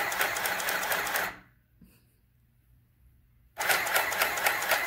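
Mini electric sewing machine stitching a seam through fleece, a rapid even run of needle strokes. It stops about a second and a half in and starts again about two seconds later.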